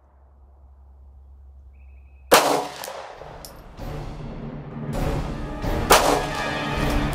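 A single 9mm pistol shot about two seconds in, firing a reloaded round. Background music comes in a couple of seconds later, with a second sharp crack about six seconds in.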